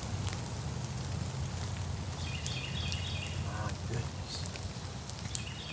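Steady rain falling in woodland, with a small bird singing one short phrase of high notes about two and a half seconds in and a few light clicks near the end.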